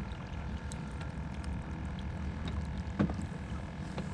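Steady low rumble and faint hum in a fishing boat, with small scattered clicks and one sharper knock about three seconds in.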